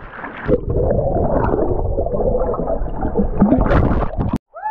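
Swimming-pool water sloshing, gurgling and splashing around a GoPro held at the waterline and dipping underwater, giving a dense low churning rumble.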